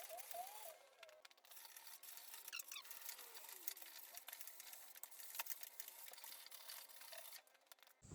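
Faint bird calls, a few short chirps near the start and a falling call about two and a half seconds in, with scattered faint clicks over an otherwise near-quiet background.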